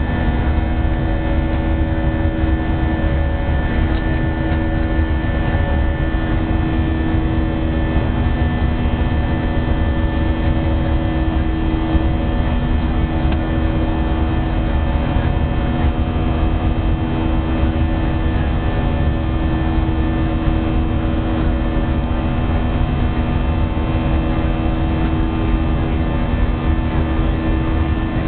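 Cabin noise of an Airbus A319-132 in flight, heard inside the cabin by a window: a steady low rumble with the even hum of its IAE V2500 turbofan engines, several tones holding constant pitch.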